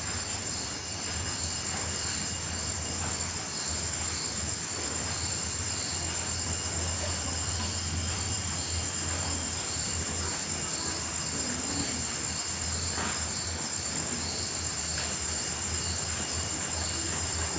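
Night chorus of crickets and grasshoppers: a steady high-pitched shrill, with another insect chirping in regular pulses a little under twice a second. A low steady hum runs underneath.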